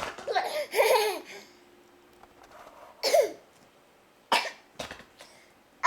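A baby making short bursts of laughing, cough-like vocal noises: a cluster in the first second and a half, another short one with falling pitch about three seconds in, then a few sharp clicks near the end.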